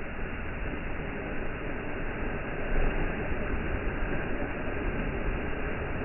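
Steady rushing noise with no distinct knocks or tones, a little louder about three seconds in.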